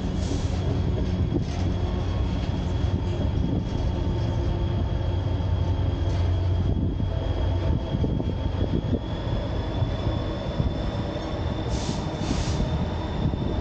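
White Pass railway passenger coaches rolling along the track, heard from the open platform between cars: a steady rumble of wheels on rail, with a thin, steady high-pitched squeal held over it.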